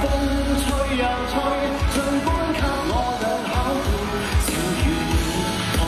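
A man singing a pop song into a handheld microphone, over backing music with a drum beat.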